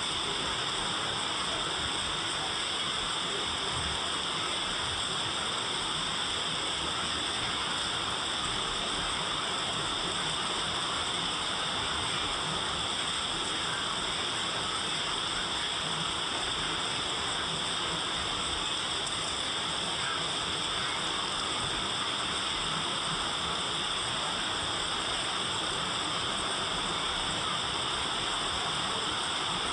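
Steady rain falling, a continuous even hiss with no pauses or changes in strength.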